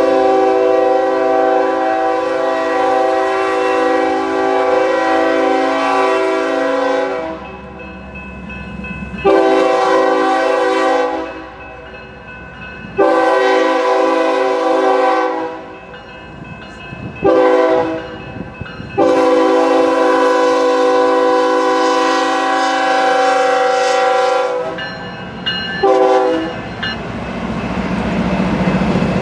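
BNSF diesel freight locomotive's multi-chime air horn sounding six blasts for a grade crossing, four long and two short, the longest held about eight seconds. Near the end the locomotive and its flatcars roll past with a rising rumble.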